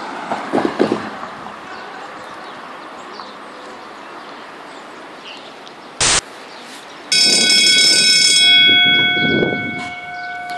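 MetroValencia Line 2 train coming in, sounding its horn: a loud chord of several steady tones starts suddenly about seven seconds in, over the rumble of the train. The higher notes stop after about a second and a half, and a few lower tones hold on. A brief loud burst of noise comes just before the horn.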